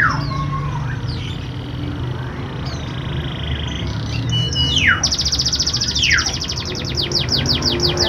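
Domestic canary singing: a held whistled note, several falling whistles, and from about five seconds in a fast trill of rapidly repeated notes that loosens into quick descending sweeps near the end.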